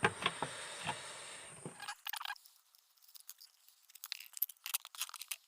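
Light clicks, taps and rustling from handling small parts, scattered and irregular. A faint steady high whine runs under the first two seconds and then stops.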